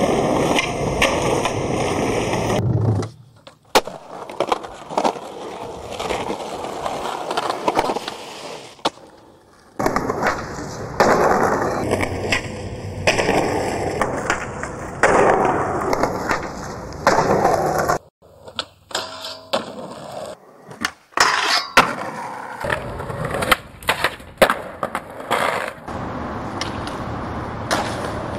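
Skateboard wheels rolling, with sharp clacks and knocks of the board popping and landing, changing abruptly several times between clips.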